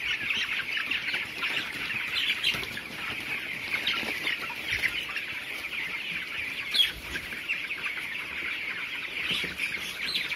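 A flock of 22-day-old broiler chickens peeping and chirping: a dense, continuous chatter of short high calls from many birds at once, with one louder, sharper call about seven seconds in.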